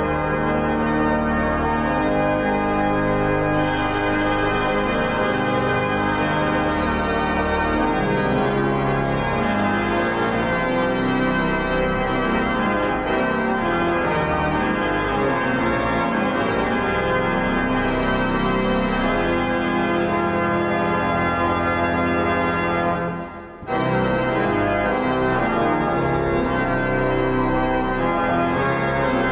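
Church organ playing sustained chords over a deep, moving bass line, with a brief break in the sound about four-fifths of the way through.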